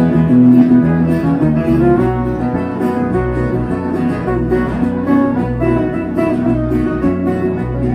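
Two acoustic guitars playing an instrumental break in a live sertanejo song, with low bass notes underneath.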